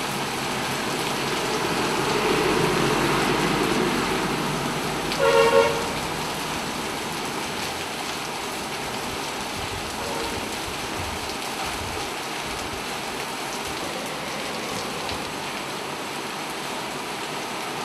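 Heavy rain mixed with hailstones pelting wet ground: a steady, dense hiss. About five seconds in, a brief pitched sound, well under a second long, stands out over it.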